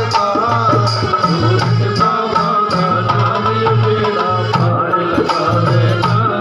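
Instrumental interlude of a Hindi devotional bhajan: a held melody line with pitch bends over a steady hand-drum beat.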